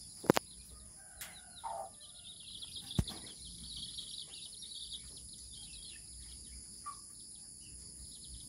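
Faint, rapid high-pitched bird chirping with a steady high hiss, a few short calls, and two sharp clicks, the first about a third of a second in and the other about three seconds in.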